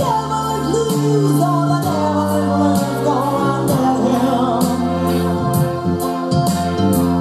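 Pop song with singing over sustained chords and a steady beat, about two strokes a second, played loudly through a home hi-fi stereo system.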